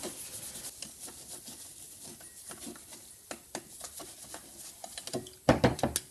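Steel wool rubbing surface rust off the bare steel plate of a brake lathe's cutting head: a dry, scratchy scrubbing with many small ticks. Near the end there is a short flurry of louder knocks and handling noise.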